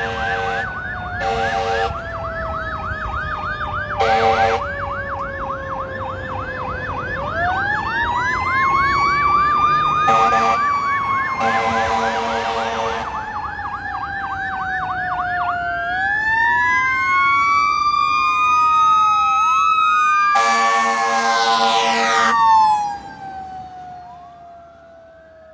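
Fire engine responding with an electronic siren on yelp, a mechanical Q siren winding down and back up, and repeated air horn blasts, the longest just before it passes. The sirens drop in pitch as the truck goes by, then fade as it drives away.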